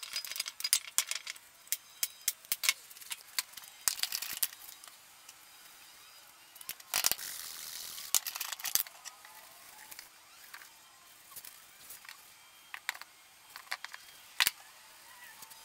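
Light metallic clinks and rattles as the dog-bowl stand is handled: the stainless steel bowls and copper pipe fittings knock in the wooden frame. A short hiss comes about seven seconds in, followed by scattered taps and a single sharp click near the end.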